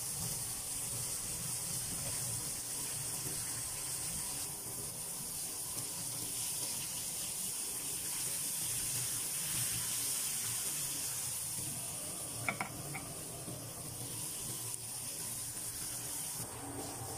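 Floured fish fillets frying in a pan of hot oil, a steady sizzling hiss. A short knock about twelve seconds in, likely the spatula against the pan.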